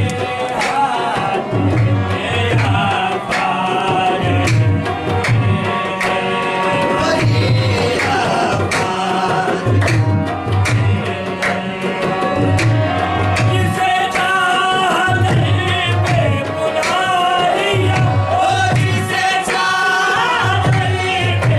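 Live qawwali: a male singer with harmonium, over the deep, regular strokes of a hand drum and hand claps.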